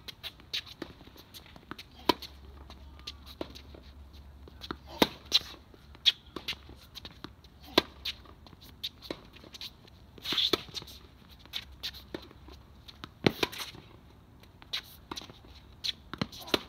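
Tennis play: irregular sharp knocks of a racquet striking the ball and the ball bouncing on court, several in quick succession at times, with a few louder hits around the middle and later on.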